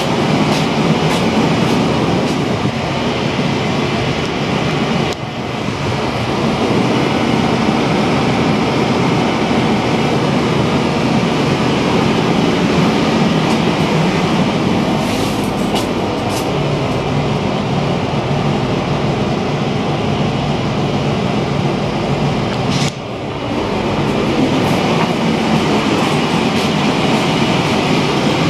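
Steady, loud drone of a ferry under way: the ship's engines running with the rush of water and wind, dipping briefly twice.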